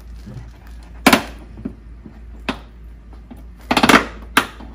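Plastic retaining tabs of a BMW X4's rear bumper cover snapping as they release while the cover is pulled back. Several sharp snaps and clicks come about a second apart, the loudest a quick cluster a little before four seconds in.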